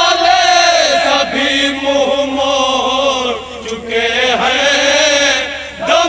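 Men's voices chanting an Urdu noha, a mourning lament, together in long drawn-out melodic lines that bend in pitch, with short breaks between phrases.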